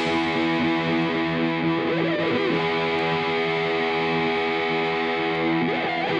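Background music: sustained distorted electric guitar chords ringing out, then cutting off right at the end.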